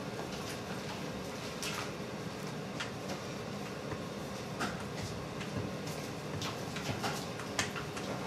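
Steady bakery-kitchen background noise with light clicks and taps scattered about once a second, from work at the bench.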